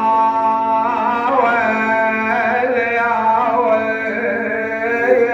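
A man's voice singing a Husseini mourning lament, drawing out long melismatic notes that waver up and down in pitch.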